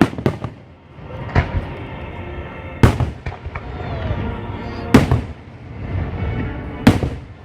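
Aerial fireworks shells bursting in a series of loud booms, each echoing away, about six in all and spaced a second or two apart.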